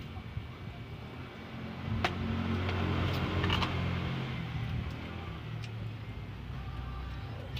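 A motor vehicle passing by: engine hum and road hiss swell about two seconds in, then fade over the next few seconds. A few light clinks of spoons on plates sound over it.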